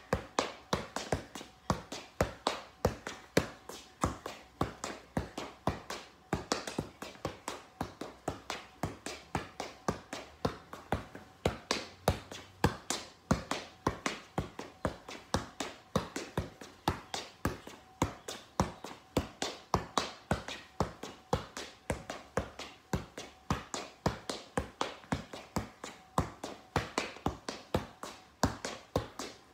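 Soccer ball being juggled: a steady, even run of sharp taps as the ball is kept up off the feet, about three touches a second.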